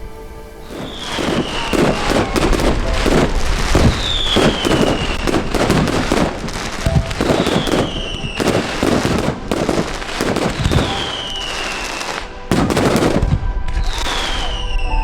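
Fireworks going off in rapid bangs and crackles, with a falling whistle about every three to four seconds, over background music.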